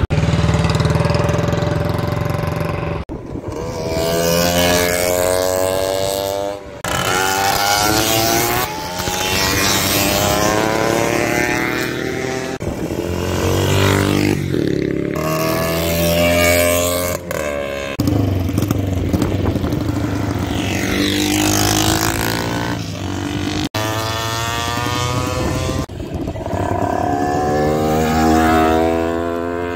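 Vintage racing motorcycles running hard on a track, engines revving up in rising sweeps and passing by, with several sudden breaks in the sound.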